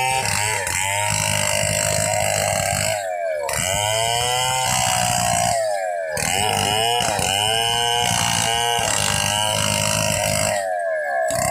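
Chainsaw cutting lengthwise through a red meranti log, running continuously under load. Its engine pitch drops and climbs back several times as the saw bogs in the cut and recovers.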